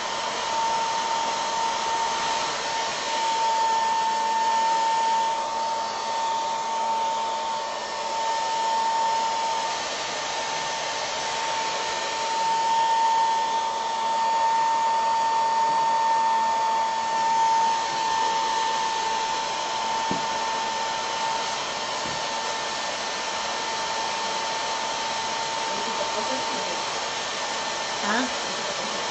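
Hand-held hair dryer running steadily, a rush of air with a steady whine, drying the crackle-finish coat on a ceramic piece.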